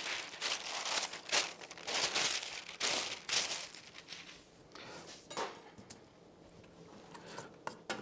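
Greaseproof paper rustling and crinkling as a sheet is handled and folded, for the first few seconds. After that it is quieter, with a few light clicks near the end.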